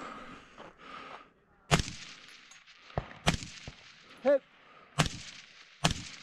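Five rifle shots at uneven intervals, each a sharp crack, fired during a night stage. A short high note sounds briefly in the middle.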